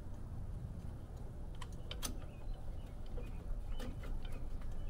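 A handful of small, scattered metal clicks and taps as the latch piece and spring are worked into a Demco trailer hitch coupler, over a low steady rumble.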